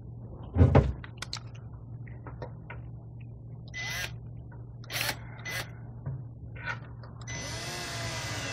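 Cordless drill with a Phillips bit driving a stainless steel screw to hold an LED light strip in place. The drill runs in a few short bursts, then for about two seconds near the end, its motor pitch rising as it spins. A loud thump comes just under a second in.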